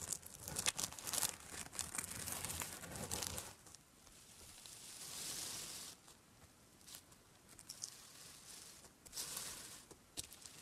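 Fingers pressing and poking into a tub of glitter slime, making sticky crackling and clicking sounds. The crackles come thick for the first three seconds or so, then thin out, with a softer hiss in the middle and another cluster of crackles near the end.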